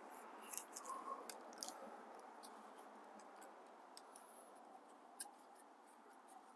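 Near silence, with faint light clicks and taps from bicycle parts being handled at the stem and handlebar during assembly. The clicks cluster in the first two seconds, with one more a little after five seconds.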